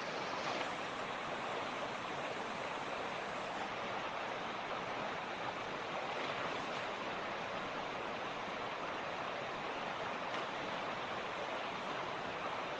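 Mountain creek flowing: a steady, unbroken rush of running water.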